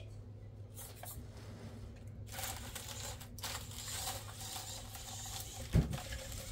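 Small RC crawler's electric motor and drivetrain whirring faintly as it crawls, starting about two seconds in, with a single thump near the end.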